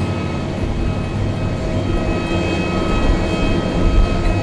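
Jet airliner engines running: a steady whine of several high tones over a low rumble.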